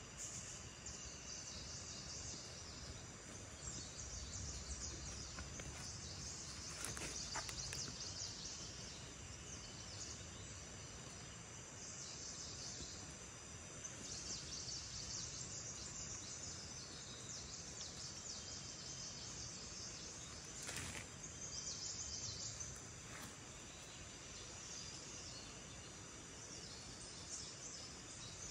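Insects chirring high-pitched in swells that come and go every few seconds, with a couple of brief scrapes of a wooden stick loosening soil, about seven and twenty-one seconds in.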